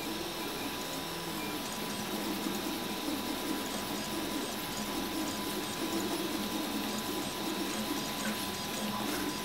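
RepRap Huxley 3D printer's stepper motors whining as the print head moves back and forth laying down filament. The motors' tones jump to a new pitch every fraction of a second with each change of move, over a thin steady high tone.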